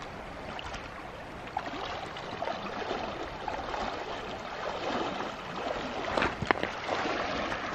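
Shallow river water splashing and sloshing around the legs of people wading across it, over the steady rush of the current, growing louder as they go deeper. A couple of sharp knocks about six seconds in.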